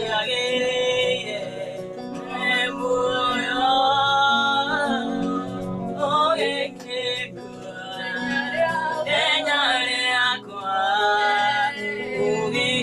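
A young man and two young women singing together to a Yamaha electronic keyboard accompaniment, with long held notes.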